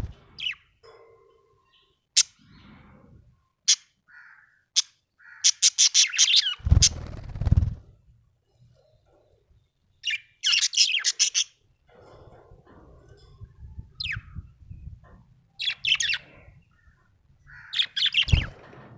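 Budgerigar chirping in short, sharp, high notes, mostly in quick runs of several chirps with pauses between. A couple of loud, low thumps come in around the middle and near the end.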